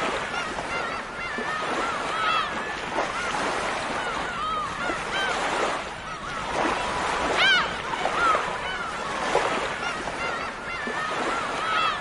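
A flock of gulls calling: many short, arched cries, overlapping and repeating, over a steady wash of surf. One louder cry comes about two-thirds of the way through.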